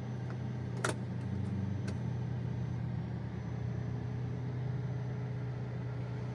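Alfa Romeo 4C's 1750 turbocharged four-cylinder idling, a steady low hum heard from inside the cabin. A sharp click comes about a second in.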